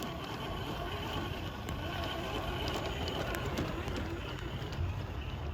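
Traxxas TRX-4 RC crawler's electric motor and gearbox whining steadily as it crawls up a dirt slope, with scattered small clicks from the tyres and stones.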